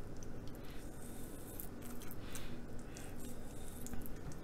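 Chef's knife slicing through a raw pork loin to butterfly it: faint scraping of the blade through the meat, with a few soft ticks.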